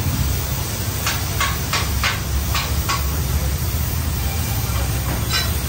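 Oxy-fuel cutting torch hissing steadily with a low rumble as it cuts through steel plate. A quick run of about six short sharp clicks comes between one and three seconds in, and one more near the end.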